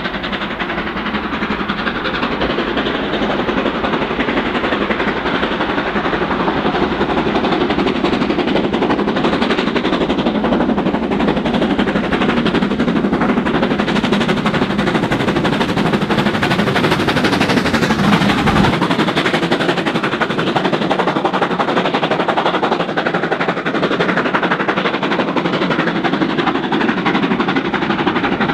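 Steam locomotive hauling a passenger train at speed, its exhaust beating in a fast, rapid chuff. It grows louder over the first few seconds as the train approaches, then the coaches run past.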